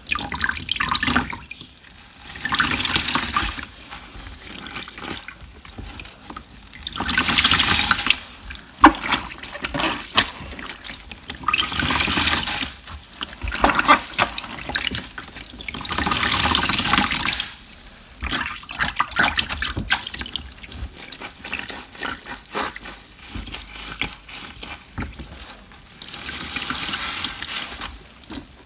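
Water rushing and splashing in repeated bursts of one to two seconds, with quieter dripping and crackling between them.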